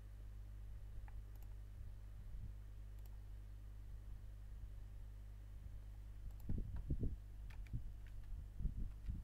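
Faint computer mouse clicks and a few keystrokes over a steady low electrical hum, with soft low thumps about two-thirds of the way in and again near the end.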